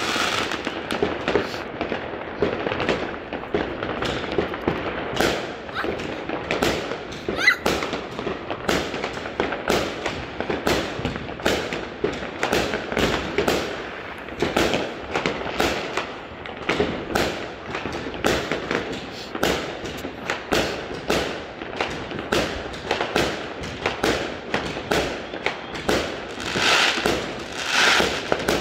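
Aerial fireworks bursting overhead: a rapid, continuous series of bangs and crackles, with brighter crackling near the end.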